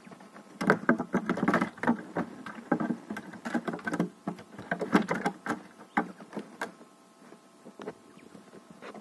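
Quails moving about in a cardboard box, their feet and beaks making a busy run of quick taps and scratches on the cardboard and straw. The tapping thins out about seven seconds in.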